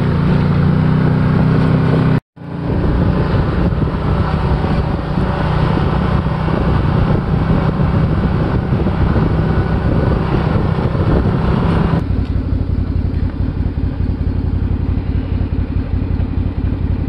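Can-Am Maverick Sport side-by-side's V-twin engine running steadily while driving a dirt trail. It cuts out briefly about two seconds in, and about twelve seconds in changes abruptly to a duller, steadier engine sound.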